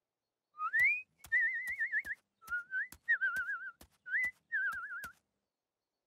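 Whistled bird-like call in a cartoon, three times over: a rising whistle, then a warbling trill. Short sharp clicks fall between and under the whistles.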